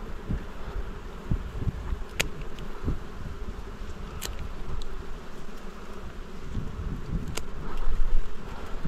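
Dwarf honey bees (Apis florea) buzzing steadily as a swarm around their nest, with a few sharp clicks and low knocks about two, four and seven seconds in.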